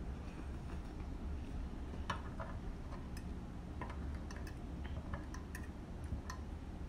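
Metal spoon and fork clinking and scraping against the bowl as the last curry noodles and broth are gathered up: a scatter of light, sharp clicks, most of them from about two seconds in, over a low steady hum.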